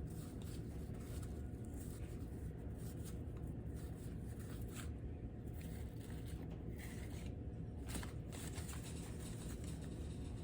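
1988 Score baseball cards being handled and flipped through one by one: faint, soft sliding and rustling of card stock, over a steady low hum.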